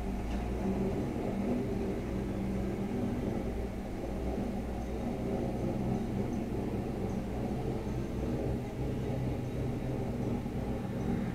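Car engine idling, heard from inside the cabin: a steady low hum.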